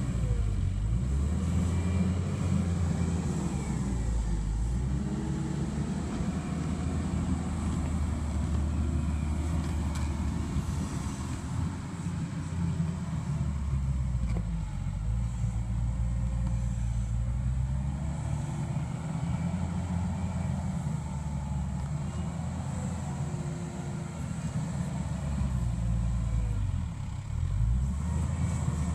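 Mustang MTL325 compact track loader's diesel engine running under load while pushing dirt, its pitch dipping and rising again several times as the load changes.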